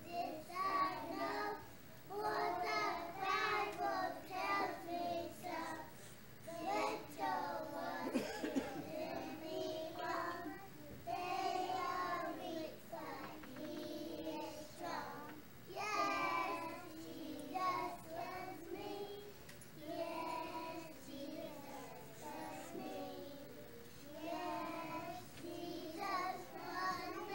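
A group of young children singing a song together, in phrases with short breaths between them.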